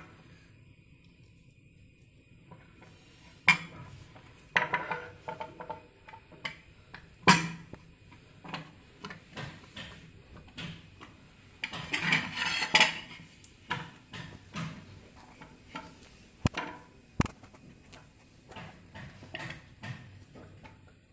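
Hardened hot-glue mould being peeled and pulled off a small metal idol by hand: scattered sharp clicks, crackles and light knocks, with a denser stretch of crackling about twelve seconds in.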